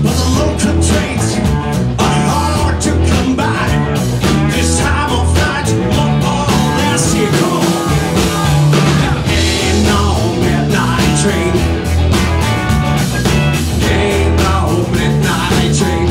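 A live rock-and-roll band playing: electric guitars, electric bass and a drum kit, with a steady beat of drum hits under the bass.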